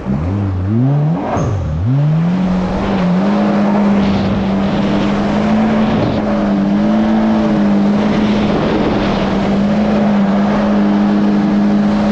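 Yamaha GP1800R SVHO jet ski's supercharged 1.8-litre four-stroke engine revving up under throttle, dipping once, then holding a steady high pitch at speed, with a steady rushing noise over it.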